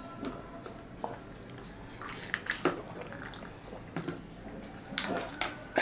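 Quick gulps and slurps of drink from small plastic cups, with scattered light clicks and taps as the cups are handled and put down.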